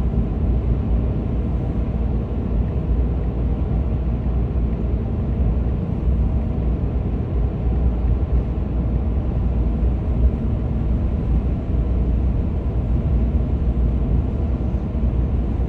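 Steady cabin noise of a 4x4 on mud-terrain tyres driving along at an even speed: a low drone of engine and tyres on the road.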